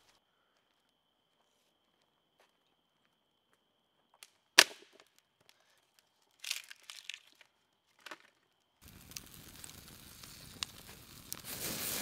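A single sharp crack a little under five seconds in, followed by brief rustling and scraping of sticks. About three-quarters of the way through, a campfire comes in, crackling over a steady hiss and growing louder toward the end.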